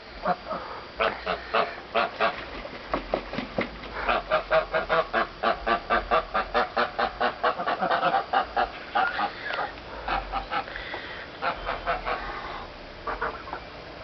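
Domestic geese honking in a long run of short calls. The honks come thick and fast through the middle, about four a second, and are sparser at the start and near the end.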